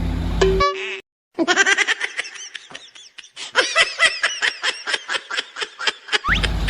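A high-pitched laughing sound effect: a fast run of short 'ha' syllables lasting about five seconds. It comes in after a low engine rumble cuts off to a moment of dead silence, and the rumble returns near the end.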